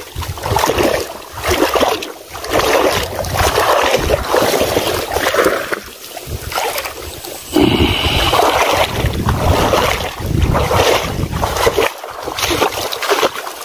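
A hooked snakehead thrashing and splashing at the surface of a shallow pond as it is pulled toward the bank, with wind buffeting the microphone.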